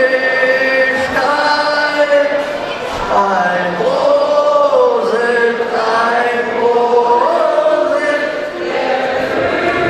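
A man singing a slow melody in long, drawn-out notes that slide between pitches.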